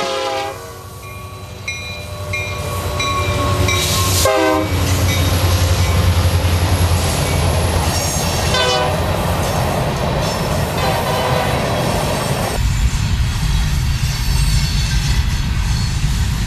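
BNSF diesel freight locomotives passing close by, engines rumbling louder as they come on and the horn sounding several times. Once the locomotives have gone by, near the end, the freight cars roll past with a low steady rumble of wheels on rail.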